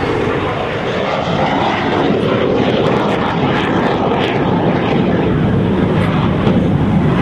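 Jet noise from Aermacchi MB-339 jet trainers, their single turbojets giving a steady rushing roar that grows a little louder about two seconds in as the aircraft passes low.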